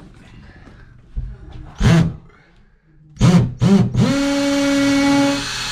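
A few short, sharp noises, then a cordless drill spins up about four seconds in with a short rising whine and runs at a steady speed, its bit boring into the drywall.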